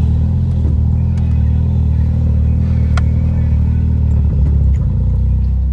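Car engine running with a steady low rumble, heard from inside the cabin of a modified car. Its note shifts briefly about four and a half seconds in, and there is a single click about three seconds in.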